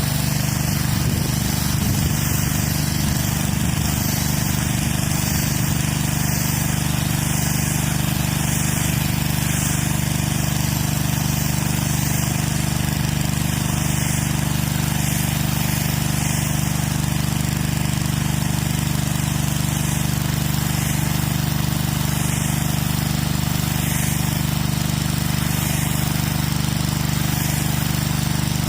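Engine-driven pressure washer running steadily, its engine holding an even speed while the high-pressure water jet sprays against concrete.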